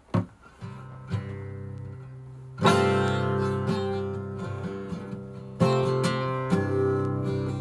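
Acoustic guitar playing a song's intro: a short knock at the start, a few soft picked notes, then full chords strummed about two and a half seconds in and again twice near the end, each left to ring.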